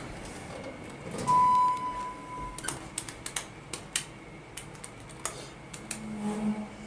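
A single steady electronic beep lasting just over a second, followed by a run of sharp clicks and taps.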